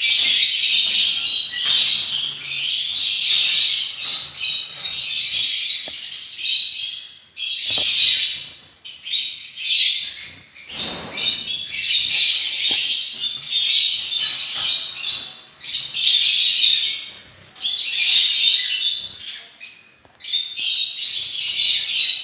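Caged finches chirping and calling together in a dense, high-pitched chatter that comes in bouts with short lulls between them. A brief rustle sounds about halfway through.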